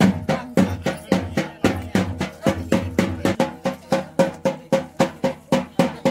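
Music driven by a drum beating a fast, even rhythm of about five strokes a second, with a steady pitched note under it.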